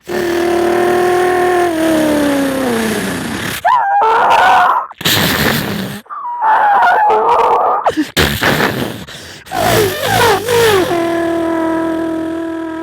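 A man imitating a stock car with his voice: a pitched engine drone sliding slowly down, then wavering tyre-squeal noises and harsh crash sounds in the middle as the car spins out and its tail, then its nose, hits the wall, and finally a steady engine tone from about two-thirds of the way in.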